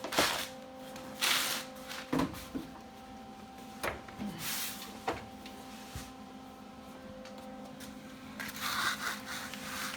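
Scattered short knocks and rustles of parts and tools being handled, over a steady electrical hum.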